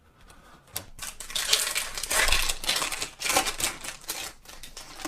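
Foil booster-pack wrapper crinkling and tearing as a Pokémon card pack is opened by hand, a busy crackle that starts about a second in and is loudest in the middle.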